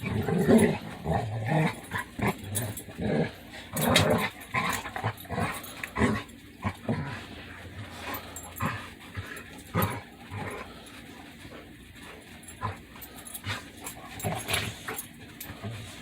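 Two pet dogs sneezing repeatedly at each other in play, mixed with short growly noises. The noises come thick and fast in the first half and thin out later. This kind of sneezing is the play-sneeze dogs use to show that the rough-and-tumble is friendly.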